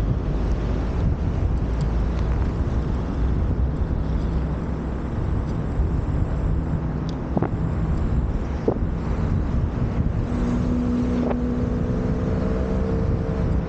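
Moped engine running during a ride, with wind buffeting the camera's microphone. From about ten seconds in, a steady hum holds at one pitch.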